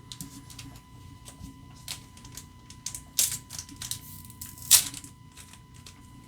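Trading cards and a foil booster-pack wrapper being handled: a run of light crinkles and clicks, with two louder rustles about three seconds and just under five seconds in.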